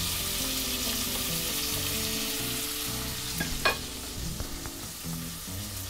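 Diced bacon, green pepper and onion sizzling as they sauté in hot fat in a pot, stirred with tongs, with one sharp click about three and a half seconds in. The sizzle eases a little in the second half.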